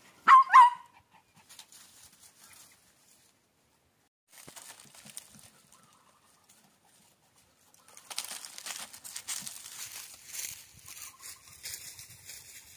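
Two short, high calls from an animal right at the start, each bending in pitch. After a lull, a steady crackling and rustling, as of dry leaves and undergrowth being disturbed, starts about eight seconds in.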